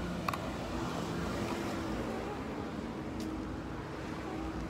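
Steady outdoor traffic hum with a low rumble and a faint held drone, plus two short clicks, one just after the start and one about three seconds in.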